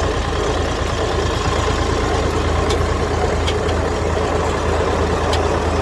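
Tractor engine running steadily while driving an IBEX mini hay baler in a low gear, with a few faint ticks over the steady drone.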